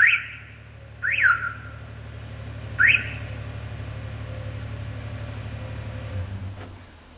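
Car alarm siren wired into flat-4 trailer wiring: its fast warbling wail cuts off at the start, then it gives a short rise-and-fall chirp about a second in and another brief rising chirp about three seconds in. Underneath, a vehicle engine idles with a steady low hum that drops away near the end.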